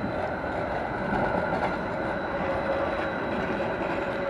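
Gothenburg M32 articulated tram passing close by on street track, its wheels on the rails and its running gear making a steady rumble, with a whine that grows louder near the end.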